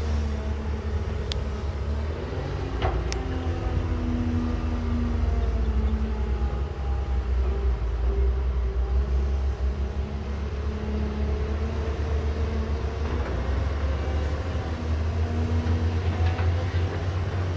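Caterpillar 312B hydraulic excavator's diesel engine running with a deep rumble, its pitch drifting up and down, with two sharp clicks in the first few seconds.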